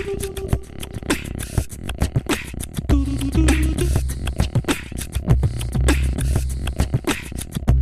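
Background music with a quick percussive beat and a bass line, in a vocal, beatbox-like style.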